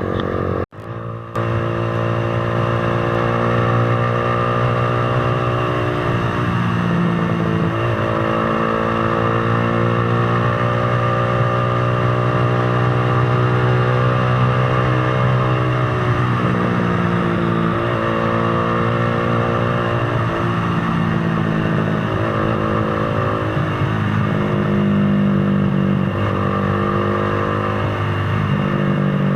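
Z200 motorcycle engine running under way at steady revs, its pitch falling and shifting a few times as the throttle or gear changes. The sound briefly cuts out about a second in.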